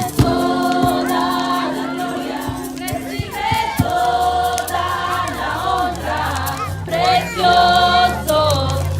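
A group of voices singing a Spanish-language worship song on drawn-out notes, with a low held note joining about four seconds in.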